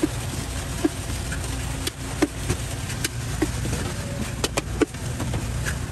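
Steady low hum of a street stall, with light clicks and taps of utensils on stainless steel trays and pots scattered through it, about ten in all and several close together near the middle.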